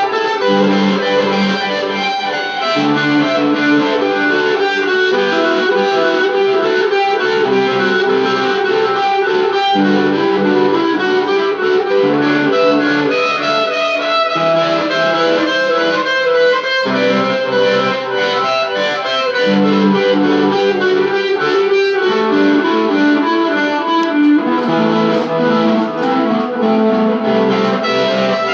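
Instrumental music with guitar and a sustained melody line, playing continuously without singing.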